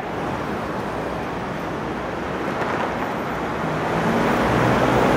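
Road traffic noise growing louder as a bus approaches, its low engine hum coming in about three and a half seconds in and swelling toward the end.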